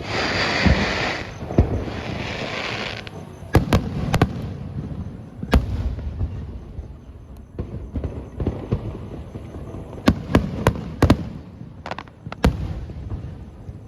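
Aerial fireworks shells: a hissing rush for about the first three seconds, then a series of sharp bangs at irregular intervals, several in quick succession about ten seconds in.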